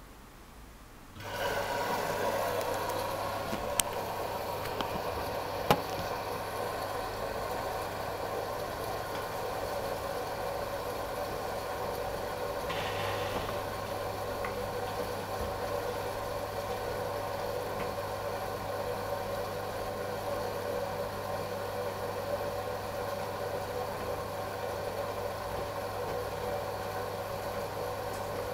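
AEG Lavamat L88489FL front-loading washing machine starting up about a second in and then running steadily through its last rinse, with a constant low hum and a few sharp clicks in the first few seconds.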